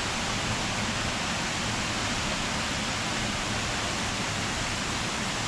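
Waterfall: a steady rush of falling water, an even noise with no breaks.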